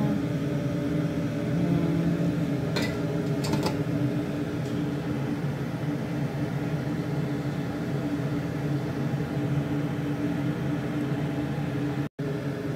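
A steady low mechanical hum and whir, like a motor or fan running, with a few light clicks about three seconds in. The sound cuts out for an instant near the end.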